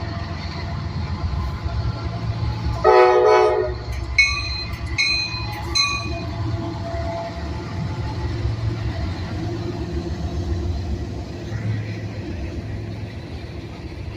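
Freight locomotive air horn on a coal train sounding a salute: one loud blast of about a second, then three short toots, over a steady low rumble.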